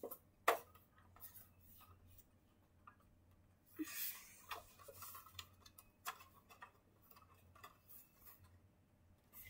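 Quiet handling noises of hands moving a stuffed plush toy on a rug: scattered soft taps and clicks, a sharper tap about half a second in, and a short patch of fabric rustling around the middle.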